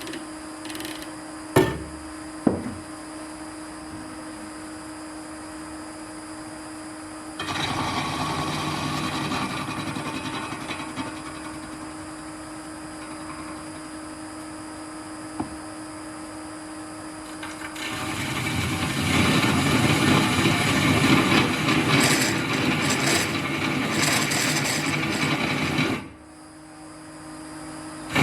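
Nova Viking drill press running with an annular cutter boring through steel, a steady motor hum under a harsh grinding cut. Two sharp knocks come in the first few seconds, the cutting noise starts about 7 seconds in and grows louder from about 18 seconds, then cuts off suddenly near the end.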